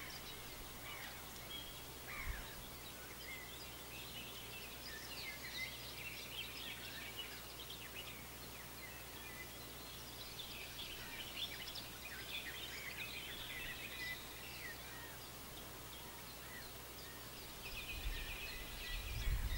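Forest ambience with small birds singing, many short chirps and trills scattered throughout over a faint steady background hiss. A low rumble builds near the end.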